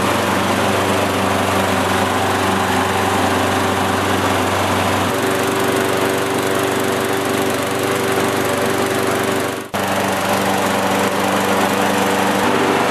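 Briggs & Stratton Quantum single-cylinder four-stroke lawnmower engine running steadily on its own with its freshly cleaned carburetor, no longer needing the primer bulb to keep going. It drops out for an instant about ten seconds in, then runs on.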